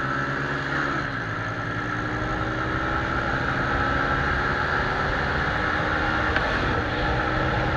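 Small single-cylinder commuter motorcycle engine running at full throttle at speed, its pitch creeping slowly upward as the bike gains speed, with a steady rush of wind noise over it.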